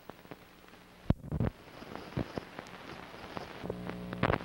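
Faint low hum, then a sharp click about a second in, followed by scattered clicks and short knocks over a slowly rising background noise.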